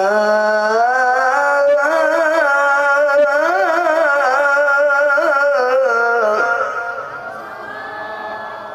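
A man reciting the Qur'an in the melodic tilawah style, drawing one vowel out into a long held note. The pitch steps up within the first second, winds through ornamented turns, then the voice grows quieter and fades near the end.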